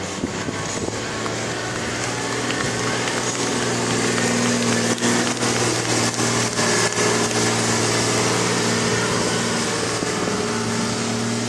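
V8 engine of a three-wheeled monster truck chopper running as the truck drives past close by, getting louder over the first few seconds.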